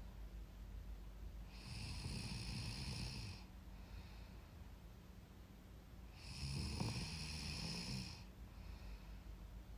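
A young woman snoring in her sleep: two snores, each about two seconds long and about four and a half seconds apart. Each is followed by a shorter, fainter breath.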